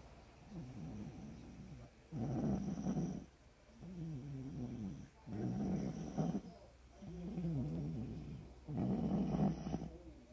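Snoring in a steady cycle of about one breath every three seconds: three rough, rattling snores, each with a softer, wavering, groaning breath between them.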